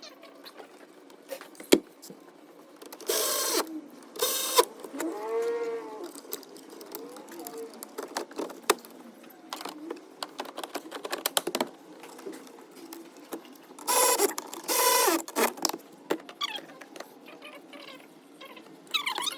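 Parts and tools being handled during interior trim work: scattered clicks and knocks, two pairs of short harsh rasping bursts, and a brief creaking squeak that rises and falls about five seconds in.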